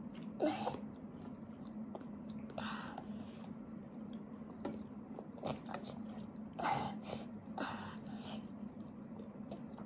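A toddler eating from a spoon: chewing and short mouth sounds as he takes spoonfuls, with faint spoon clicks against the cup, over a low steady hum.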